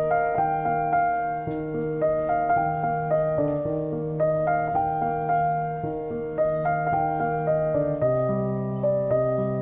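Background piano music: a gentle repeating pattern of chords and melody notes.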